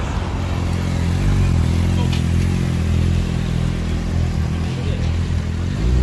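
Motorcycle engines running steadily at low revs as bikes ride slowly past, a low drone with no sharp revving.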